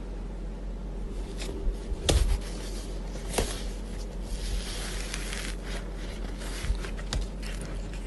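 Hands squishing and rubbing slime, with a few sharp clicks and pops, over a steady low hum.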